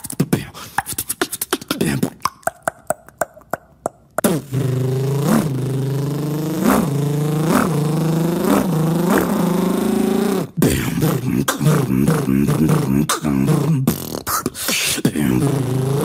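A beatboxer making sound effects with his mouth and voice. First comes a fast run of mouth clicks, then from about four seconds in a long buzzing hum with upward swoops in pitch about once a second, and from about ten seconds in a wavering hum that breaks up.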